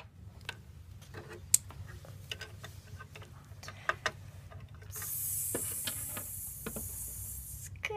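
Small plastic clicks and taps of Playmobil figures being handled, then from about five seconds in a steady hissing "sss" lasting nearly three seconds: a child's mouth sound for a figure peeing on the toy toilet.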